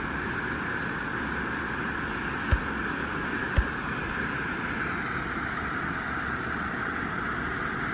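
Steady rush of flowing stream water, with two dull thumps about a second apart a little over two seconds in.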